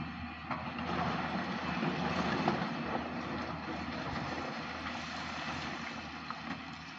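Heavy mining machinery running: a steady low engine drone under a broad mechanical noise that swells about a second in and slowly eases off.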